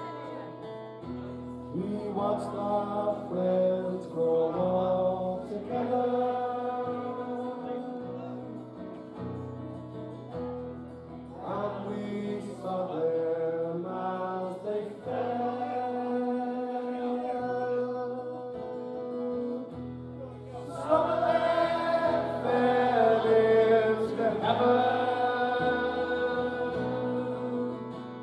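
A man singing a slow song to his own strummed acoustic guitar, heard live through a PA, his voice swelling louder for a few seconds about two-thirds of the way through.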